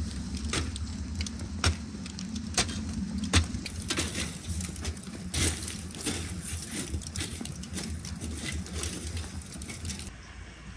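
Hot charcoal being raked and stirred with a metal poker at the bottom of a tandoor oven: irregular sharp clinks and scrapes of coals shifting, over a steady low rumble.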